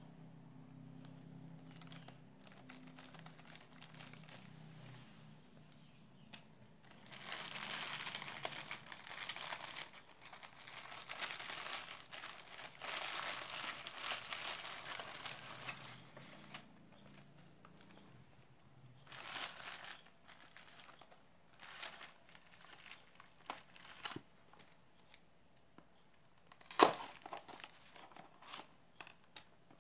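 Plastic bag, clear plastic wrap and paper packing crinkling and rustling as a parcel is handled and unwrapped. It comes in bursts, longest and loudest in the middle, and there is one sharp click near the end.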